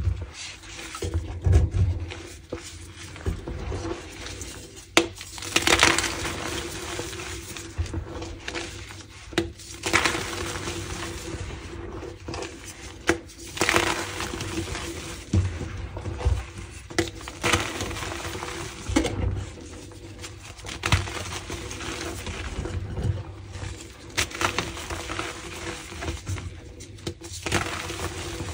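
Slices of gym chalk dusted with Holi powder crunching as they are crushed, with sharp crunches every two to four seconds and smaller crumbling crackles between them.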